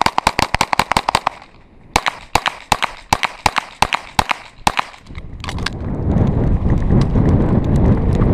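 Pistol fire in rapid strings: about ten shots in the first second and a quarter, a half-second pause, then another fast string of about fifteen shots, with a few fainter shots a little later. After that a steady low rumble of wind and movement on the microphone takes over.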